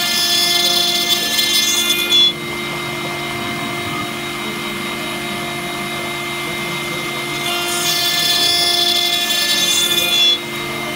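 CNC engraving and milling machine cutting a brass plate with a small end mill under coolant: the spindle runs with a steady whine. Twice the cut turns louder and higher-pitched, for about two seconds at the start and about three seconds near the end, and each time it cuts off suddenly.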